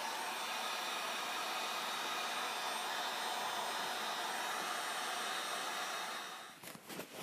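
Handheld electric heat gun running steadily, its fan blowing hot air to shrink heat-shrink tubing over a soldered wire joint. It shuts off about six seconds in, followed by a few light clicks.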